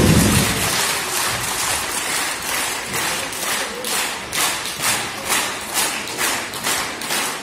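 The dance music cuts off at the start. Audience applause follows and settles into slow clapping in unison, a little over two claps a second.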